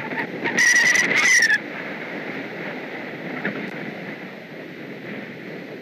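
Two harsh calls from a great blue heron at the nest, back to back about a second in, over a steady rustling.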